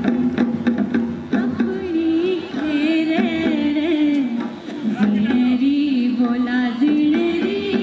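Kullu folk music for the nati dance: a wavering melody line over drum beats.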